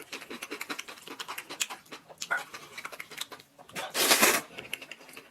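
Close-miked eating: rapid wet chewing clicks and smacks from a person's mouth, with a loud breathy burst lasting about half a second, about four seconds in.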